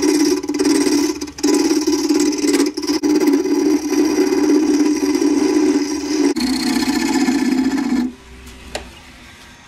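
Turning tool cutting into the face of a wooden bowl blank spinning on a wood lathe: a loud, steady scraping buzz with a short break about a second in, stopping about eight seconds in when the tool comes off the wood.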